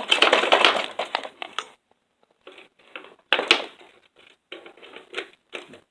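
Hard plastic and metal parts of a portable TV/radio clattering and clicking as it is pulled apart by hand: a dense rattle for the first couple of seconds, then scattered clicks and a sharp snap about three and a half seconds in.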